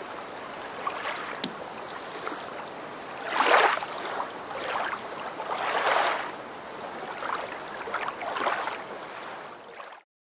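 Small waves washing onto a sandy shore, each wash swelling and fading every two to three seconds; the sound cuts off abruptly near the end.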